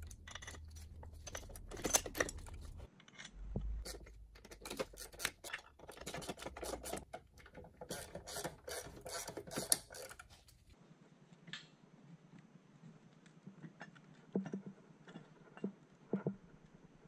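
Metal clinking and clattering, with dense clicks for about ten seconds, then a quieter stretch with a few scattered clicks near the end.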